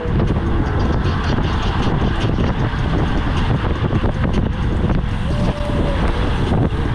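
Wind rushing over the camera microphone on a road bike riding at speed: a loud, steady rumble.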